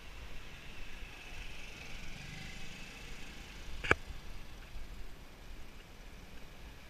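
Motor scooter engine running as it rides past on the street, over steady traffic noise, with one sharp click about four seconds in.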